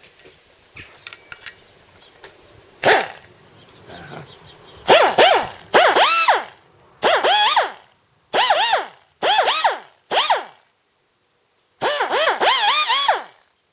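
A 3-inch pneumatic cut-off tool run in a series of about seven short bursts after a few light clicks. Each burst has air hiss and a whine that rises and falls as the disc spins up and winds down. The tool stops cleanly each time, so its once-sticking switch, now oiled, is switching off as it should.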